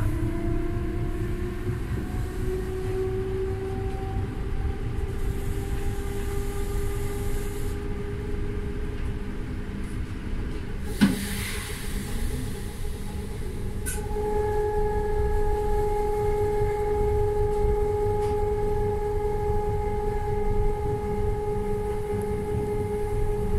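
Inside an ÖBB class 4020 electric multiple unit running on the line: a steady low rumble from the running gear, with an electric whine that slowly rises in pitch as the train picks up speed. About eleven seconds in there is one sharp knock. From about fourteen seconds a steadier whine holds at one pitch.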